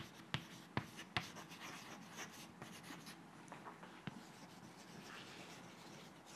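Chalk writing on a blackboard: three sharp taps of the chalk in the first second or so, then quieter scratching strokes as the words are written.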